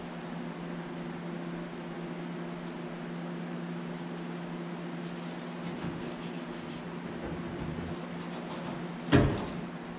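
Steady low mechanical hum of shop equipment, with faint handling sounds and one sharp knock about nine seconds in.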